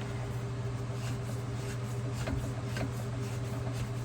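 A steady low machine hum, with a few faint clicks and taps of a metal compression fitting being handled on the pipe.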